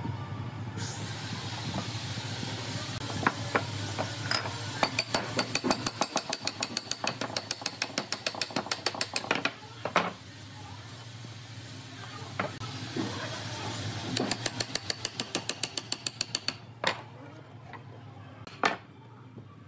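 Wooden pieces and dowels knocking against each other and the workbench as curved pine segments are fitted with dowels. There are two runs of quick, even taps, about five a second, and a few single louder knocks, over a steady low hum.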